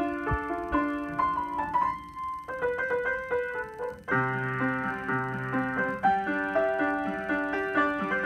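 Upright piano being played: a quick, flowing run of notes over held lower notes, easing off briefly before a new low chord comes in about halfway through.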